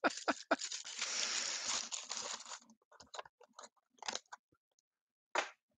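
A man laughing: quick rhythmic bursts that end about half a second in, then a long breathy wheeze of laughter for about two seconds, followed by a few scattered soft clicks and taps.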